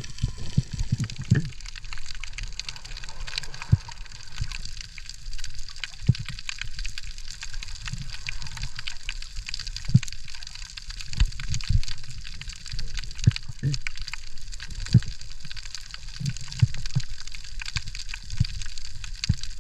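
Underwater sound picked up by a camera in a waterproof housing: a constant fine crackle of small clicks, with irregular low thumps and sloshes of water moving against the housing every second or two.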